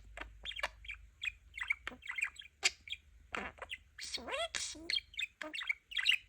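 Pet budgie chattering and warbling: a fast, uneven run of short chirps, clicks and squeaky whistles, with a few longer notes that slide up and down.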